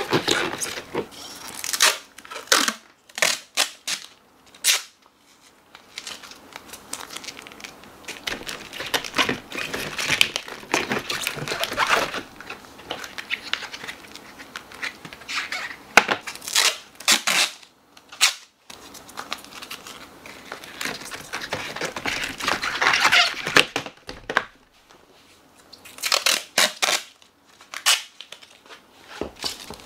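Packing tape pulled off the roll in short rips and torn, then crinkling and rubbing as it is pressed down over screen mesh on a plastic lid, in irregular bursts with brief pauses.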